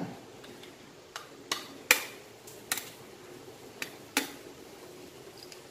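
An eggshell tapped with the handle of a ladle to crack it: six short, sharp taps at uneven intervals, the loudest about two seconds in.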